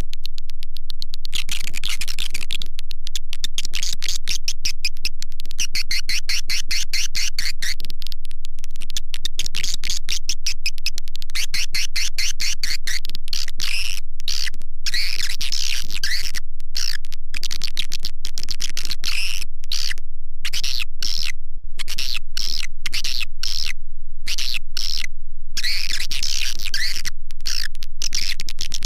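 Swiftlet calling-sound track: rapid, densely layered twittering chirps and clicks of swiftlets, electronically processed and held at a constant loud level, coming and going in waves over a steady low hum.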